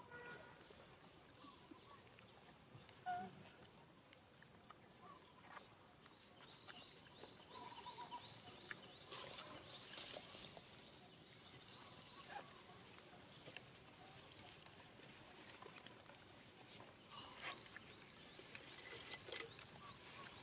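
Faint crinkling and tapping as a young long-tailed macaque handles and drinks from a small drink carton, with scattered light clicks that cluster about nine seconds in. A few faint, short animal calls are also heard.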